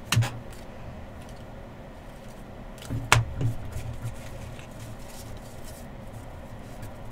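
Quiet handling of a stack of trading cards, with a click at the start and a single sharp tap about three seconds in.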